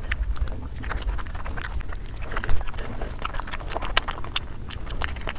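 A person chewing a mouthful of steamed momo dumplings close to the microphone: irregular mouth clicks and smacks, with a few sharper ones about two and a half and four seconds in.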